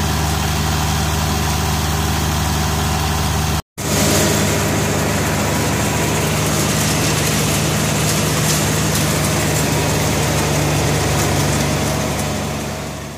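Large farm-machinery engine running steadily at constant speed. It cuts out for a moment about four seconds in, comes back, and fades out near the end.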